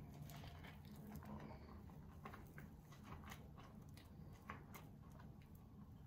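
Faint scattered clicks and crackles of rubber-gloved hands and a comb working relaxer cream through hair, over a low steady hum.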